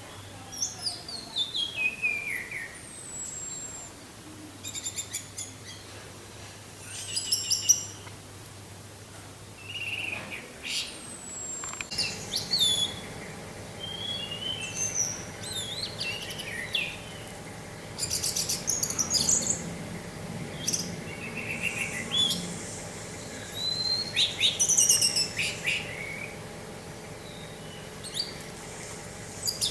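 Orange-headed thrush singing a continuous, rambling song: clear whistled phrases, notes slurring downward and bursts of rapid chatter follow one another with little pause.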